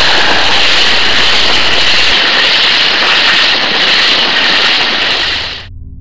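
Loud, steady hiss that cuts off abruptly near the end, followed at once by a ringing gong-like musical tone.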